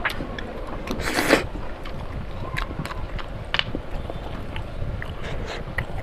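A person eating curry and rice: wet chewing and mouth clicks, with a short louder noisy burst about a second in, over a steady low rumble.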